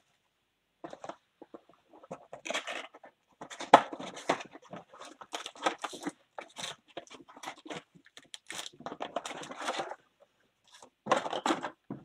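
A trading card hobby box being opened by hand: wrapping tearing, then foil card packs crinkling and rustling in irregular bursts as they are pulled out and dropped onto the table.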